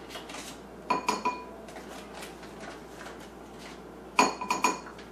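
Metal spoon clinking against a bowl while almond flour is spooned in. It comes as two quick runs of three or four ringing clinks, one about a second in and one about four seconds in.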